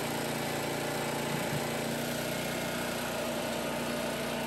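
John Deere Z930M zero-turn mower's engine running steadily. The freshly rebuilt Tuff Torq hydrostatic transmissions are not making their whining noise.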